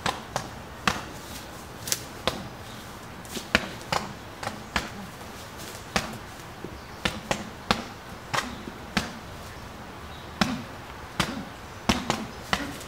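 Boxing gloves punching a tree trunk: irregular sharp thuds, often two or three in quick succession.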